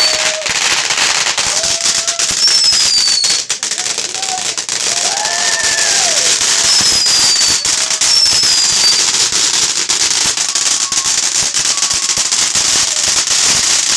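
Fireworks crackling very loudly and close by, a dense unbroken run of rapid pops like a long string of firecrackers, with several short falling whistles over it.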